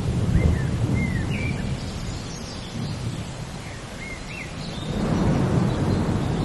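Thunder rumbling over steady rain, easing off in the middle and swelling again near the end. A few short bird chirps sound during the lull.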